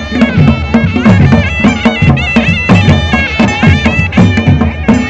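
Live Kullu folk band: a shrill reed pipe plays a bending, wavering melody over a barrel-shaped dhol and a stick-beaten drum keeping a steady, fast beat.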